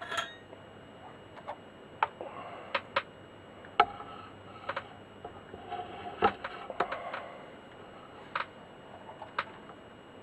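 Irregular light clicks and taps of small tools and a wire being handled while an earth lead is soldered onto a metal tag.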